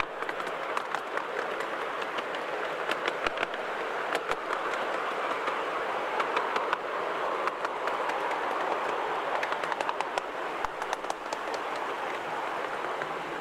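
Open passenger cars of a miniature railway rolling along the track: a steady rumble from the wheels on the rails, broken by frequent sharp, irregular clicks and clacks.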